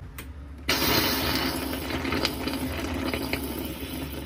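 Motorhome water pump running with the tap open: a steady hum with a hiss, starting suddenly about a second in. No water is reaching the tap; the pump is failing to draw from the tank, which the owners put down to the tank draining or losing suction because the motorhome is parked on a tilt.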